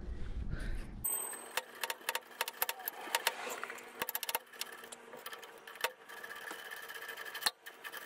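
Socket ratchet clicking in quick, irregular runs as it loosens the clamp bolt on a pickup truck's exhaust tip.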